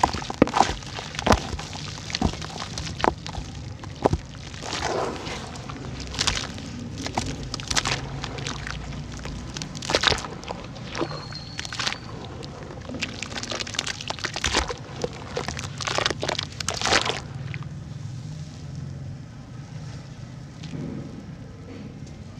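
Red dirt (sand-cement) chunks crumbling in water: irregular sharp cracks and snaps, with a few longer crumbling, trickling stretches.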